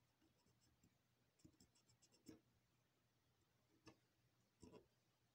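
Faint scratching and a few light clicks of a cotton swab scrubbing between the teeth of a stand mixer's metal gear, in short bursts about 1.5 to 2.5 seconds in and again near the end.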